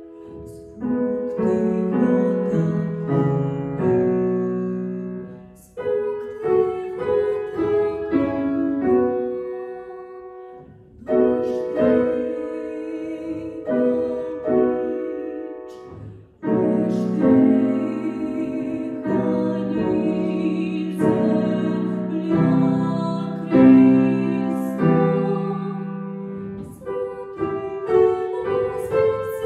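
A woman singing a classical art song in a trained voice, accompanied by a grand piano.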